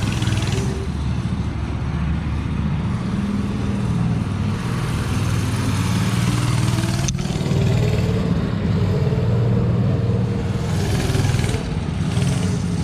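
Go-kart's small engine running under throttle while the kart is driven, its pitch rising to a peak and then slowly falling off. A single sharp click comes about seven seconds in.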